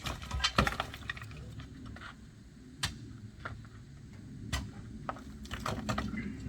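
Irregular sharp knocks and clicks over a low steady rumble, from masonry work on a retaining wall, with a quick run of them at the start and another about six seconds in.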